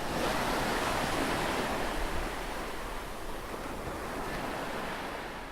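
Steady rushing noise of water and wind, fading in at the start.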